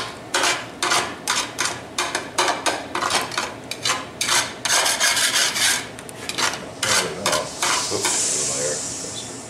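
A metal spatula scraping and stirring scrambled eggs, bacon and home fries in a large hand-forged frying pan, in quick strokes a couple of times a second. Near the end the strokes stop and the food sizzles steadily in the hot pan.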